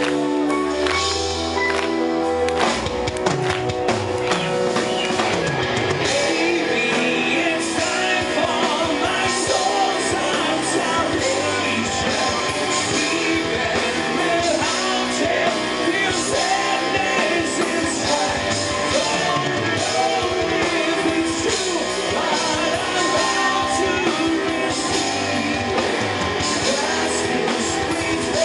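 Symphonic metal band playing live. Held keyboard chords come first, then drums, electric guitar and bass come in about three seconds in, with lead vocals over the band.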